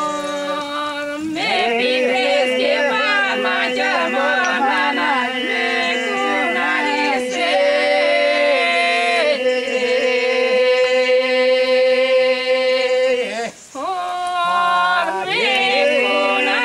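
A small group of men and women singing unaccompanied, with a steady held drone under a wavering lead melody. The singing breaks off briefly about three-quarters of the way through and then starts again.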